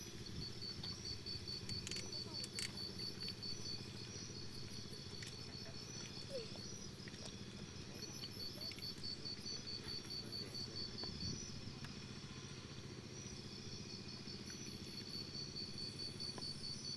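Insects chirping in fast, even pulse trains that run on for several seconds, pause and start again, over a low steady hum.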